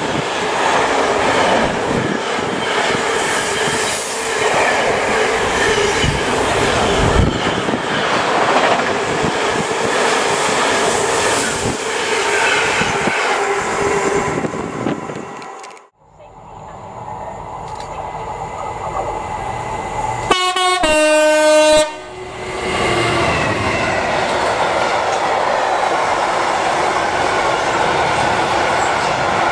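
A container freight train runs past at speed with wheels clattering over the rail joints; its tail clears about 14 seconds in. After a cut, a second freight train approaches, sounds a short loud horn blast about 20 seconds in, then its long rake of box wagons runs past.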